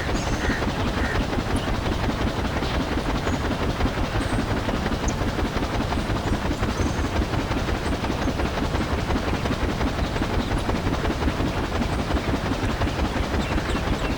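A small motor running steadily with a fast, even flutter, coming in abruptly at the start.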